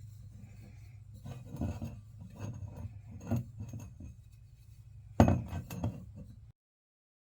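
Metal exhaust parts being handled: light clinks and scraping with several knocks, the loudest about five seconds in, over a steady low hum. The sound cuts off abruptly near the end.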